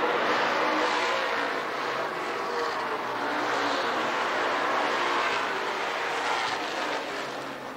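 A pack of oval-track stock cars racing, several engines running hard at once, blending into one steady din that eases off near the end as the cars move away.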